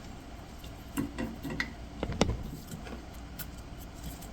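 Scattered light clicks and taps as the drill press is handled to loosen its drive belt, a few sharp ticks spread over the seconds.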